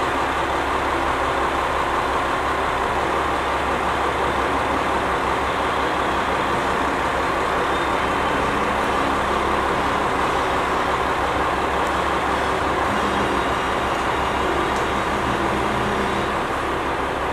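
KiHa 40-series diesel railcar running into the platform at low speed: a steady diesel engine hum with wheels on the rails, passing close by near the end.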